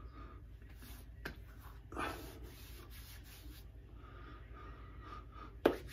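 Hands rubbing on wet skin, freshly covered in aftershave splash and held cupped over the face. About two seconds in there is a long breathy hiss, a sniff through the hands. Near the end comes a short, sharp, loud sound.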